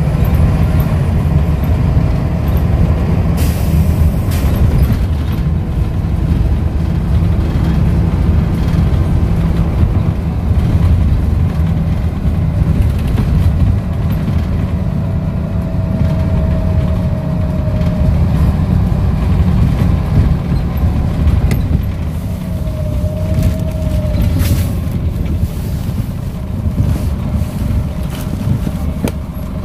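Scania L94UB bus's five-cylinder diesel engine and ZF automatic gearbox running while the bus is under way, heard from inside the passenger saloon as a steady low drone. Brief hisses of compressed air come a few seconds in and again later on.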